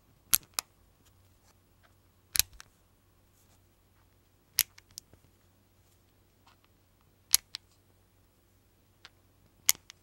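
5 mm magnet balls snapping together with sharp metallic clicks as rings of balls are reshaped into triangles, mostly in pairs of clicks about every two to two and a half seconds.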